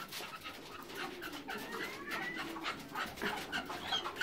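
Bird calls, most likely from red-legged partridges: soft low calls under a scatter of short chirps, with a brief rising whistle about two seconds in.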